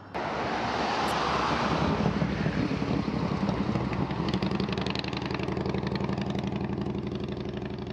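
An engine running steadily with a fast, even pulse. It starts abruptly at the beginning and holds a steady pitch throughout.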